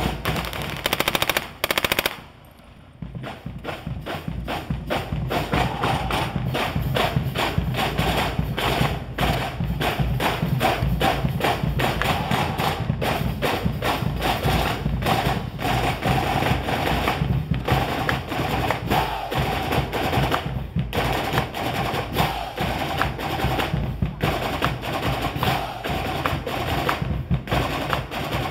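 A massed military drum corps playing field drums in unison: fast, dense strikes and rolls, with a break of about a second near the start before the drumming resumes and runs on without stopping.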